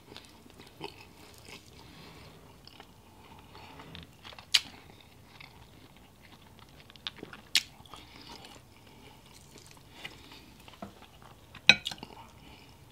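Close-up chewing of grilled chicken thigh meat, mouth mostly closed, with a few sharp wet clicks; the loudest comes near the end.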